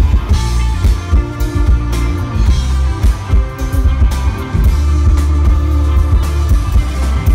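Live rock band playing: electric guitar lead over electric bass and a drum kit, with a heavy, booming low end, heard from the audience.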